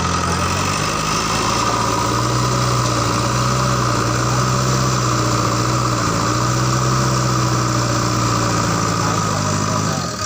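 Diesel engine of a JCB 3DX backhoe loader running steadily; the pitch steps up a little under a second in and falls away just before the end.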